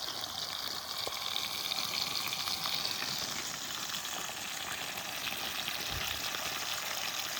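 Fish frying in a pan: a steady sizzle with small scattered crackles.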